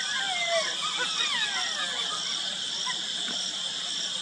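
A pack of golden jackals howling: many overlapping falling, wavering wails that trail off about two seconds in. Steady insect calls continue underneath, with a pulsing higher chirp.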